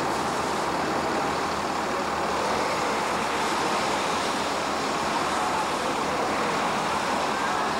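Steady roadside vehicle noise: idling emergency vehicles and traffic on a rain-wet highway, with no distinct events.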